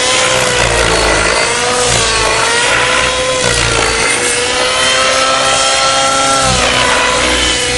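Align T-Rex 700N nitro RC helicopter's glow engine and main rotor running at high head speed in 3D aerobatic flight. The pitch sags and recovers about once a second as the manoeuvres load the rotor.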